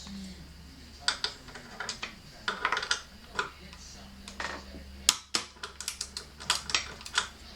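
Torque wrench with a 5 mm hex socket clicking in a series of sharp, irregular clicks as the crank arm pinch bolts are tightened in steps toward 12 Nm.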